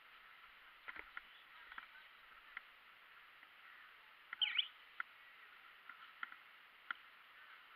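A bird gives a short, quick chirp about four and a half seconds in, over a steady faint hiss, with scattered light ticks throughout.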